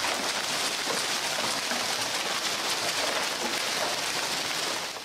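Hailstorm: a dense, steady hiss of large hailstones and rain pelting down on the ground.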